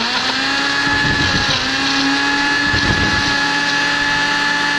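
Mondial kitchen blender motor running at speed, a steady whine, churning Play-Doh modelling clay with neon paint. Its pitch dips briefly about a second and a half in, then holds steady.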